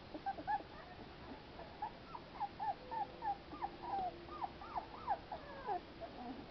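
A litter of young American Pit Bull Terrier puppies squeaking and whimpering in a quick run of short, high, falling cries, which come thickest from about two seconds in.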